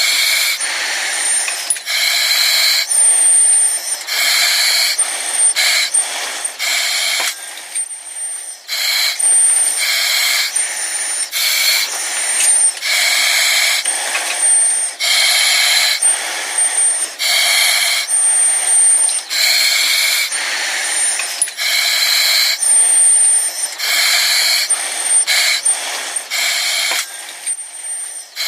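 Breathing through an oxygen mask: hissing breaths in and out, one after another every second or two, with a thin high whistle on many of them.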